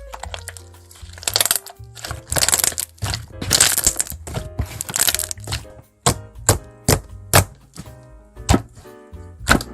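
Repeated crisp crackling and crunching strokes, something brittle being pressed or crushed, over jazz background music. The sound drops out completely for a moment about six seconds in.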